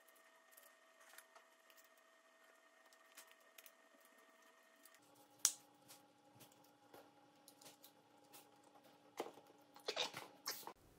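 Quiet handling of thin laser-cut birch plywood parts being fitted together by hand: faint small clicks and taps, one sharper click about halfway through, and a few more short knocks near the end as the assembled piece is set down on the table.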